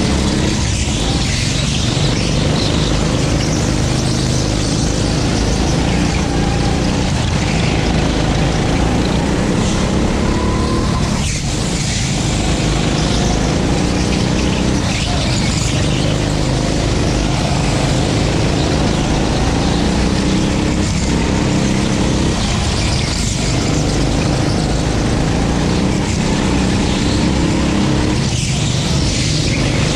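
A 9 hp racing go-kart's petrol engine running hard under load, its note wavering in pitch with brief dips every few seconds, over rushing wind and tyre noise.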